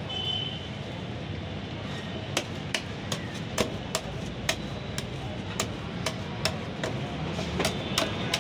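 Metal spatulas striking and scraping a frozen metal cold plate as strawberry ice cream is chopped and spread thin for ice cream rolls. Sharp clicks come about once or twice a second, more often after the first couple of seconds, over a steady background noise.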